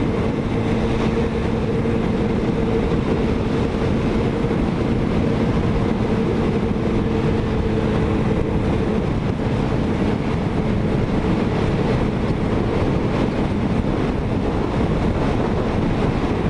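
Motorcycle running at speed: a steady engine tone under heavy wind and road noise. The engine tone fades out about nine seconds in, while the wind and road noise carry on.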